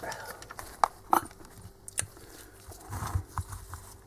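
Light handling noises from gloved hands: a few sharp clicks and taps about a second and two seconds in, with faint rustling and a soft low bump near the end.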